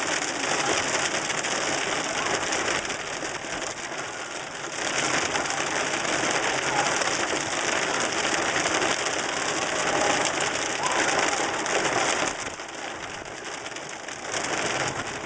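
Rain hitting a moving car's windshield and roof, heard from inside the car: a dense steady hiss that swells and eases, dipping for a moment about four seconds in and again for a couple of seconds about twelve seconds in.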